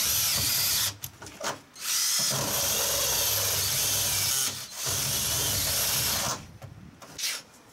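Cordless drill with a step bit cutting through the tough outer metal skin of an old commercial beverage cooler, run in bursts: a short run, two brief blips, then two runs of about two seconds each, stopping a little over a second before the end.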